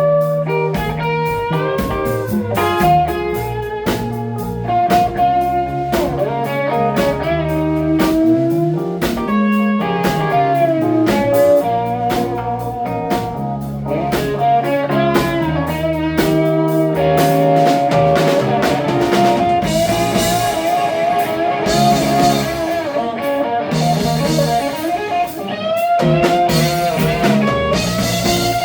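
Live band music with no singing: a lead electric guitar plays sustained, bending notes with vibrato over drums, in a blues-rock style.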